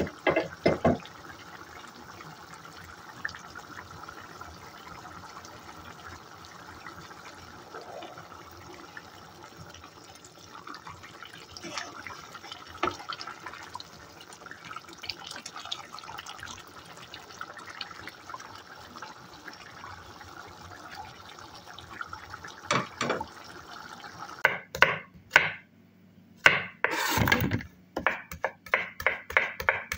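A pan of tomato stew with green beans and potato bubbling faintly as it simmers, with a few spoon scrapes against the pan. Near the end a kitchen knife chops potato on a cutting board in quick, regular strokes.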